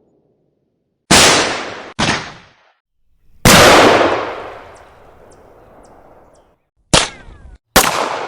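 A run of separate single gunshot sound effects, about five in all, each cut off abruptly into silence before the next. The loudest, about three and a half seconds in, has a long fading echo.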